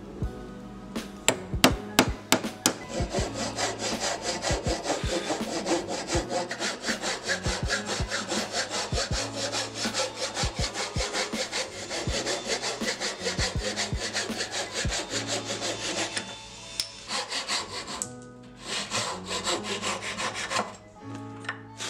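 A handsaw cutting hard maple with rapid, even strokes, pausing briefly about three-quarters of the way through before sawing resumes. It is preceded by a few sharp knocks of chisel work on the wood in the first seconds.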